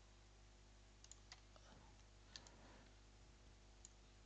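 Near silence, broken by a handful of faint, short clicks from computer controls at the desk.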